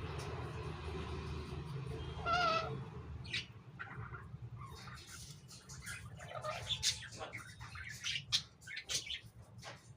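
Chattering lories calling: one short, nasal, pitched call about two seconds in, then a scatter of short squeaks, chirps and clicks. A low hum lies underneath for the first few seconds.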